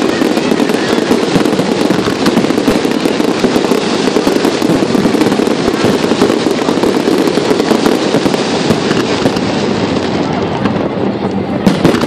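Fireworks display: a continuous dense barrage of overlapping bangs and crackles, with one louder bang near the end.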